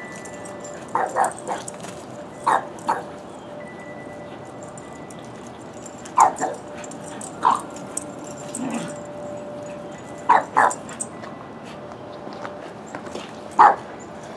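A dog at play barking in short, sharp barks, mostly in quick pairs, about a dozen over the stretch, the loudest about six seconds in and near the end.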